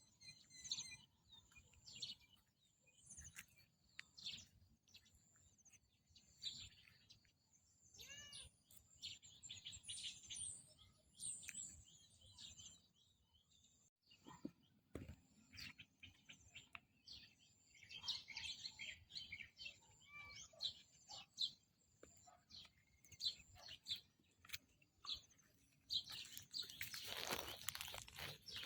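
Faint bird chirping: scattered short, high tweets throughout. Near the end there is a louder scratchy rustle.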